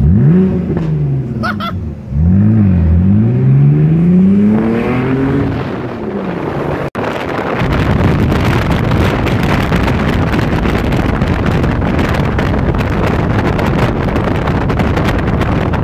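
BMW Z4 E85 3.0i's 3.0-litre straight-six, its backbox deleted, revving hard as the car accelerates from a standstill: the pitch climbs, dips at a gear change about two seconds in, climbs again and falls as the throttle is lifted. After a cut, a steady rush of wind and road noise over the open-top cabin at speed.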